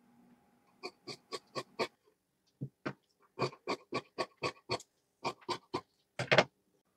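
Scissors cutting knit cotton vest cloth along a marked line: a run of short snips, about three to four a second, in several groups with brief pauses between them.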